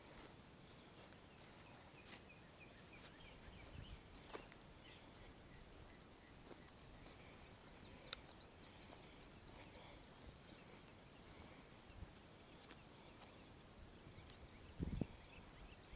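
Near silence: faint open-air ambience with a few soft clicks, and a dull low thump near the end.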